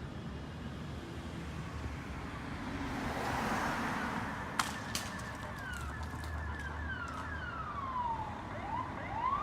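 Emergency vehicle siren arriving in short falling yelps, then a longer falling and rising wail, over a low engine hum. A rush of noise comes about three seconds in, and a single sharp click just before halfway.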